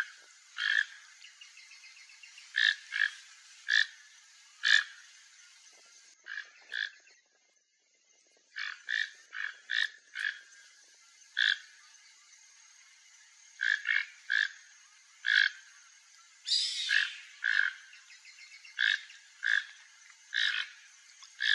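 Toco toucan giving short, hoarse croaking calls, one at a time at irregular intervals, over a steady high hiss.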